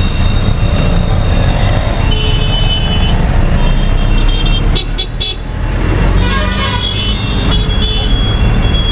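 Auto-rickshaw engine running loud and rough, heard from inside its open cabin amid dense road traffic. Vehicle horns toot several times, with a quick run of short beeps about five seconds in.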